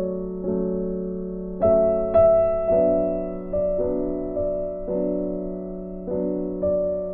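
Slow, soft background piano music: held chords with a new note or chord struck every half second to a second, each fading away.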